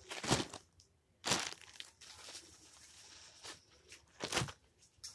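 Rustling, crinkling handling noises in short bursts: a loud one right at the start, another about a second later and one near the end, with softer rustles between.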